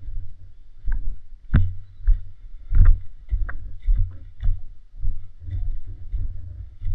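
Low rumbling and thudding noise on a camera microphone worn by a player on the move, broken by sharp knocks and clicks about once a second, the loudest near two and three seconds in.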